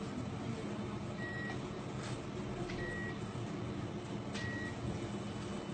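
A short, high electronic beep repeating about every one and a half seconds over a steady low hum, with a few faint clicks.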